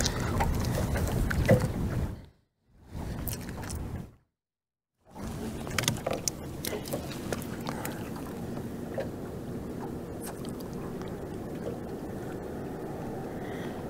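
Steady wind and water noise on an open fishing boat, with scattered light clicks and taps from handling rod and tackle. The sound cuts out completely twice, briefly, about two and four seconds in.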